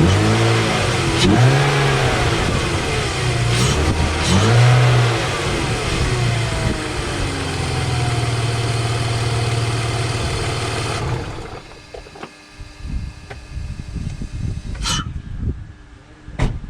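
BMW E46 engine breathing through a freshly fitted Spectre cold air intake, revved in several quick throttle blips with the intake noise plain. It then runs steadily and cuts off about eleven seconds in.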